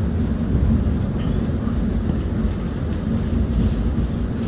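Steady low rumble heard from inside a London Tramlink tram as it runs along street track.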